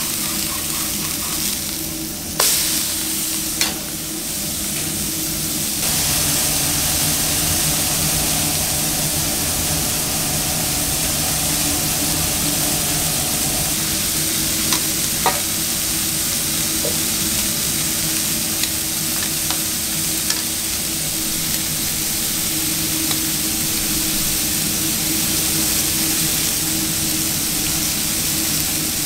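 Beef burger patties sizzling on a ribbed grill plate, a steady hiss over a low hum, with a few sharp clicks of metal utensils on the grill, the loudest about two seconds in.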